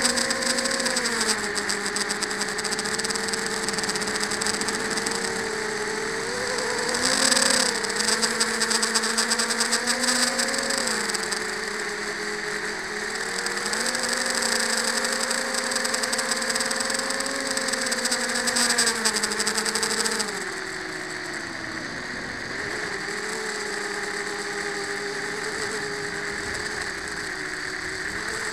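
FPV quadcopter's brushless motors and propellers buzzing, heard through the onboard camera, with the pitch stepping up and down as the throttle changes. The buzz drops lower and quieter about two-thirds of the way through.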